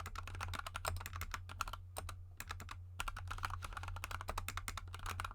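Fast typing on a GK64 mechanical keyboard with lubed Gateron Yellow linear switches and XDA keycaps: a dense stream of keystroke clacks with a brief pause about two seconds in, over a steady low hum.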